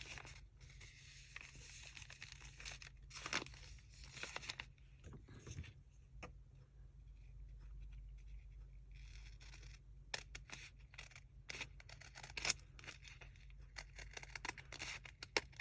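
Scissors cutting through paper, with paper rustling and handled between snips, and a run of small clicks and snaps near the end.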